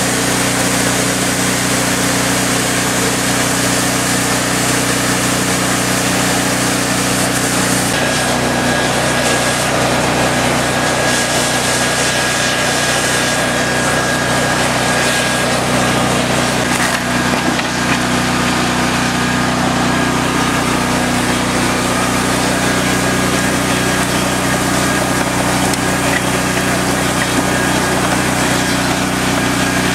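A small engine running steadily at one speed, its pitch shifting slightly about eight seconds in.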